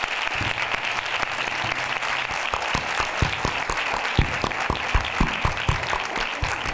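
Audience applauding steadily, with louder single claps close by from about halfway through.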